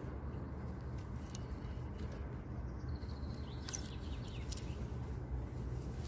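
Outdoor ambience at a lake: a steady low rumble with a few faint bird chirps around the middle and several light clicks, as from handling the fishing rod and reel during a cast.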